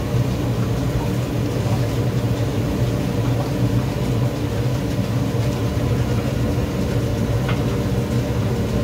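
Chicken pieces deep-frying in a large wok of hot oil, a steady sizzle over a loud, steady low roar. A faint light clink comes about three quarters of the way through.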